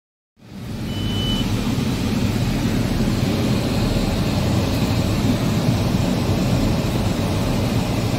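Car cabin noise while driving: a steady engine and road rumble, cutting in abruptly just under half a second in, with one short high beep about a second in.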